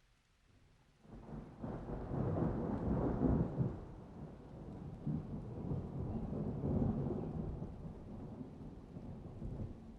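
Thunder rolling: a low rumble breaks in suddenly about a second in, is loudest over the next couple of seconds, swells again midway and then slowly eases off.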